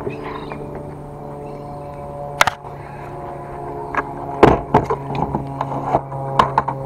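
A motor running steadily with a low hum and overtones, broken by several sharp knocks and bumps of handling, the loudest about four and a half seconds in.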